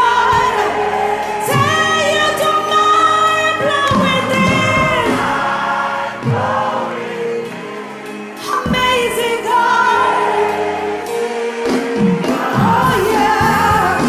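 Gospel choir singing a slow worship song with a live band, the voices holding long notes. The bass and drums drop out for a couple of seconds in the middle, then come back.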